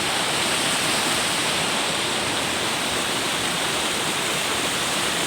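Forest river water babbling and rushing steadily, a continuous even wash of running water with no breaks.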